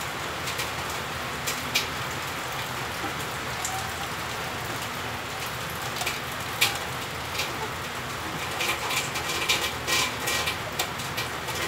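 Steady rain falling, with scattered light clicks and rattles of a galvanised wire-mesh snake trap being handled, coming more often near the end.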